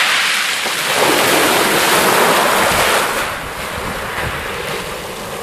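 Small waves breaking and washing up a shingle beach, a steady surf hiss that eases about three seconds in, with wind buffeting the microphone.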